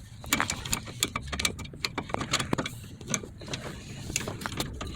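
Irregular light metallic clicks and rattles of small steel parts being handled: a parking brake cable clevis, its pin and a cotter pin being fitted.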